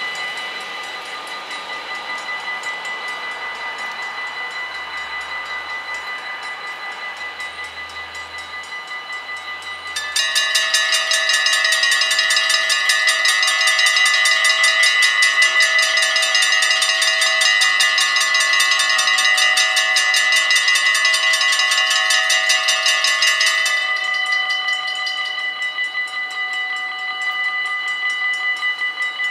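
Mechanical bells of an automatic half-barrier level crossing ringing with rapid, steady strokes as the warning runs and the barriers lower. About ten seconds in, more bells join and the ringing grows much louder, and near the end most of them fall away again.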